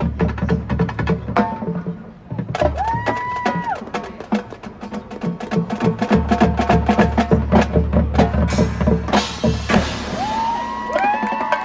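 Marching band percussion playing a fast, busy rhythmic passage of rapid strikes over a steady low bass drone. Rising-and-falling gliding tones come in about three seconds in and again near the end.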